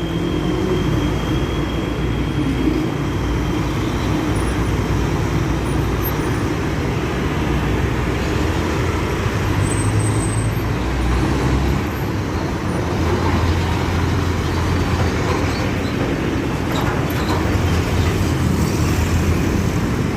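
Diesel bus engine running with a steady low rumble, amid road traffic noise.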